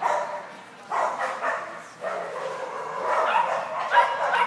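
A dog barking repeatedly, sharp barks at first, then a busier run of barking.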